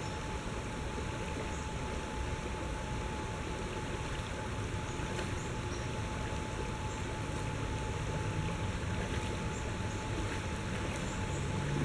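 Shallow river water running over rocks in a riffle: a steady rush.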